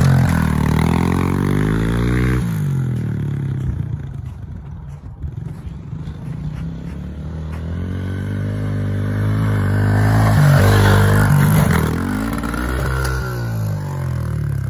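Small pit bike engine revving up and down as the bike rides off and then back, fading and growing with distance. Near the end it revs hard toward the ramp and then bogs down with no power, and the bike goes down with a scraping clatter.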